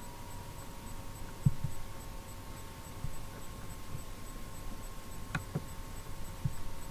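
Computer mouse clicks over a steady electrical hum: a soft double-click about a second and a half in and another quick pair near the end.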